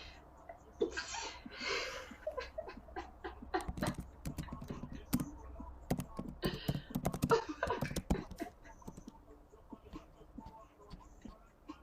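A woman in a sneezing fit: two breathy bursts about one and two seconds in, then panting breaths, bits of voice and laughter, and scattered sharp clicks.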